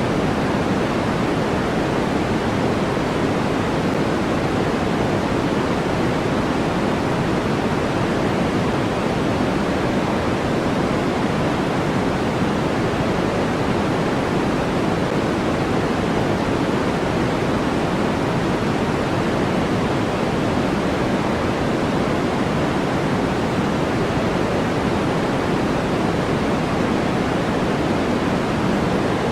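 Steady synthetic white noise: an even, unbroken rush with no change in level, fuller in the low and middle range than a bright hiss.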